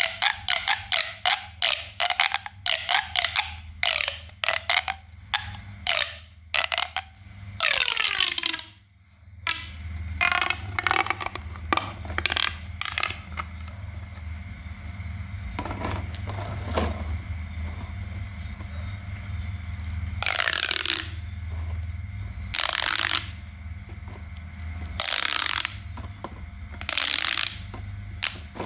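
Handling of a small homemade toy and its craft materials: quick runs of sharp clicks and pops, a falling squeak about eight seconds in, then scattered scraping and rustling bursts, each about a second long, over a low steady hum.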